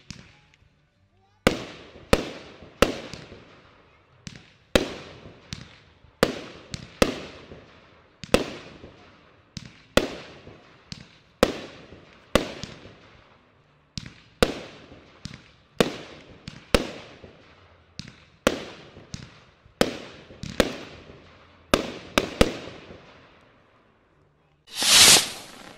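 Jorge 'Imagine' 19-shot firework cake firing: a steady run of sharp bangs, roughly one every half-second to second, each trailing off. About a second before the end there is a brief, loud rush of noise.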